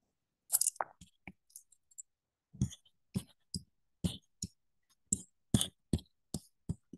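Irregular clicks and taps from a digital pen writing on a tablet, about fifteen short, sharp strokes spread unevenly over several seconds.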